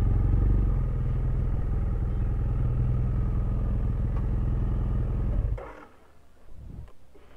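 BMW F800GS parallel-twin motorcycle engine running steadily, then switched off about five and a half seconds in; a faint low thump follows.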